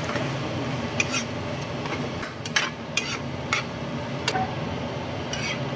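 A spatula stirring diced potatoes and carrots in a non-stick frying pan, scraping and knocking against the pan several times, over a steady low hum.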